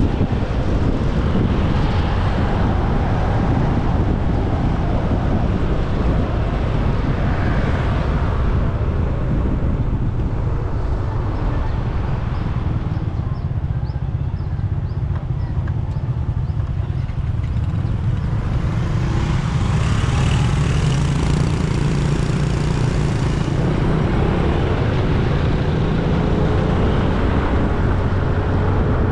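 Motor scooter riding along a road: its engine running under steady wind rumble on the rider-mounted camera's microphone, with road and traffic noise. An engine note rises near the end.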